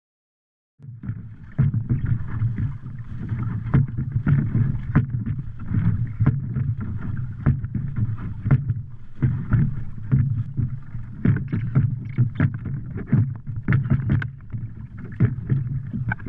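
Water sloshing and splashing as a swamped wooden dory is bailed out with a paint bucket. There are many irregular knocks and splashes over a steady low rumble, starting about a second in.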